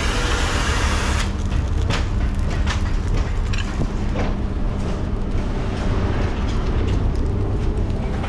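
Engine of heavy scrapyard equipment running steadily with a low hum. A loud hiss cuts off about a second in, and a few sharp metallic knocks sound later.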